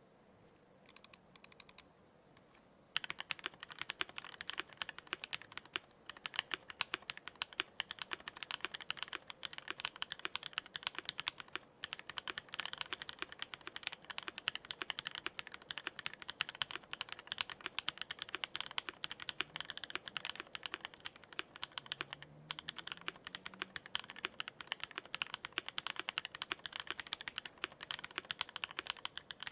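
Typing on a custom Noir GHS RAR mechanical keyboard with lubed AEboards Raed long-pole linear switches, an aluminium plate, plate foam, a tape mod and GMK keycaps: a poppy, fairly unmuted clack. A few light keystrokes come first, then fast, continuous typing starts about three seconds in.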